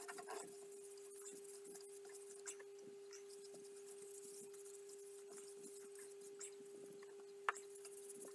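Faint rustling and scratching of sanding sealer being wiped onto a turned wooden jewellery box, with small scattered clicks and a sharper click about seven seconds in, over a steady faint hum.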